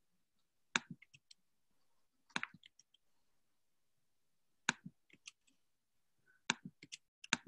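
Computer keyboard and mouse clicks, in about five small clusters of a sharp click followed by a few lighter ones, as text is edited.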